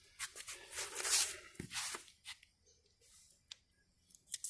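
Masking tape being peeled off a painted plastic tail-light lens: scratchy ripping pulls for the first couple of seconds, then a few light clicks of handling.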